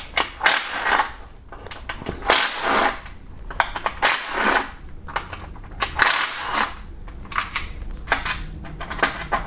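Hand ratchet with a 10 mm socket clicking in short bursts of rapid ticks, several times over, as the transmission oil pan bolts are loosened.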